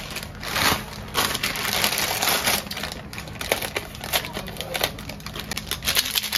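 Plastic Maggi instant noodle packets crinkling and rustling as they are handled and opened, with many quick irregular crackles.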